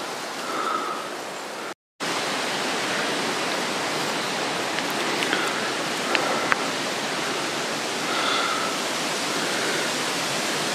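Water running steadily at a spring fountain, an even rushing noise. It drops out for a moment about two seconds in, then carries on unchanged.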